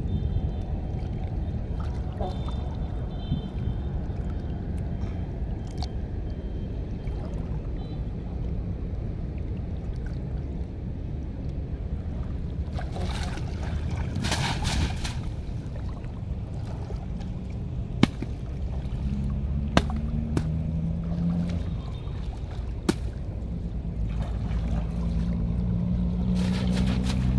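Shallow water sloshing as a net trap is hauled through it, and about halfway through water pours off the lifted netting in a loud splashing stream for a couple of seconds. A steady low rumble runs underneath, with a few sharp clicks later on and a low droning tone near the end.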